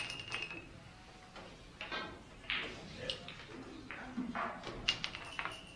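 Several sharp clicks and knocks at irregular intervals, typical of billiard balls striking one another and cues tapping on a billiards table.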